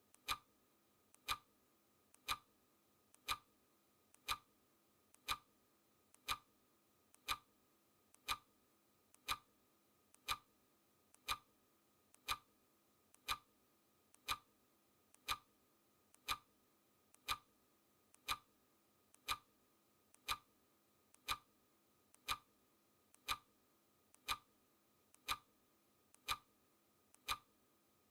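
Clock ticking sound effect, one tick a second, steady and even. Each tick is a sharp click with a fainter click just before it.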